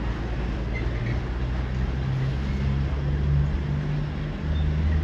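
Diesel freight locomotive engine running, a low drone that rises a little in pitch and swells about three seconds in.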